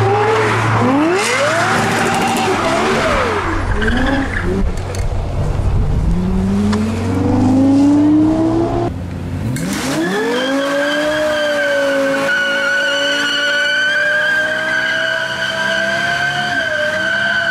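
Lexus LFA's 1LR-GUE V10 revving hard in repeated rising and falling sweeps as the car spins with tyres squealing. About nine seconds in, after a cut, it revs up quickly and holds high revs through a smoky burnout.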